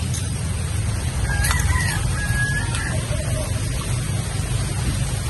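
A rooster crows once, starting about a second in and ending with a held high note, over a steady low rumble.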